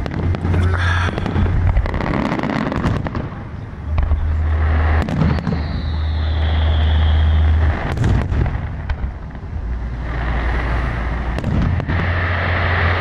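Aerial fireworks shells bursting in a rapid series of bangs over a deep continuous booming rumble. About five and a half seconds in, a long whistle glides down in pitch for two seconds.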